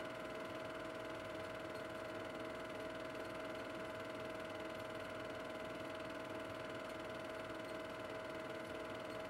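Steady machine whir with a constant high hum, unchanging throughout.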